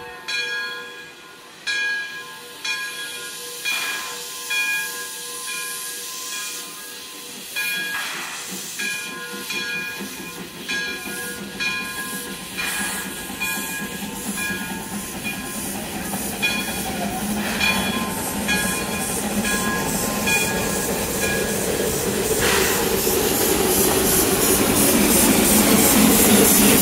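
Narrow-gauge steam locomotive hissing heavily as it vents steam, with irregular sharp chuffs about every second or two and a shrill, steady whistle-like tone over the hiss for much of the time. The hiss grows steadily louder and denser toward the end.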